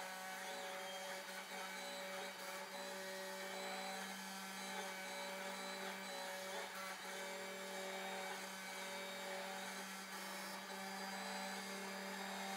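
Snapmaker A350 CNC spindle running steadily with a constant hum while its bit carves a wooden board.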